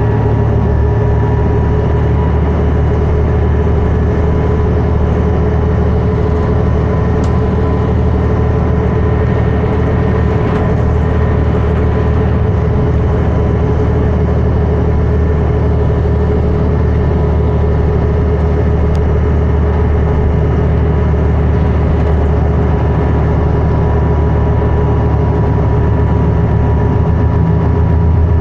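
Inside a 2011 New Flyer D60LFR articulated bus cruising at freeway speed: the Cummins ISL9 diesel engine and Allison B500R transmission run steadily under tyre and road noise, with a steady whine over the low engine sound.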